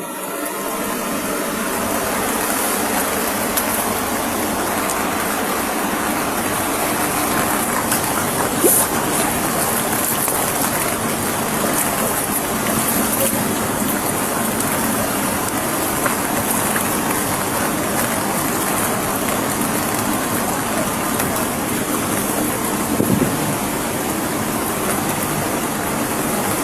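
Heavy rain with rushing floodwater: a steady, loud hiss and rush of water, with a brief louder knock about nine seconds in and another near twenty-three seconds.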